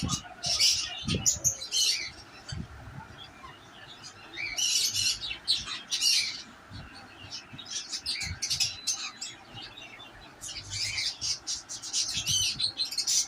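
Cockatiels chirping and squawking in repeated bursts of shrill calls with short gaps between, a warbling run of calls near the end.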